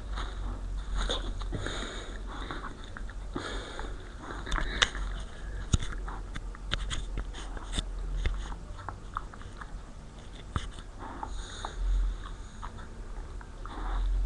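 A dog sniffing close to the microphone in repeated short bursts, with a few sharp clicks about five and six seconds in. A low steady hum runs underneath.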